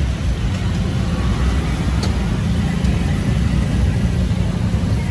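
Steady rumble of road traffic going by, a continuous low noise without any single vehicle standing out.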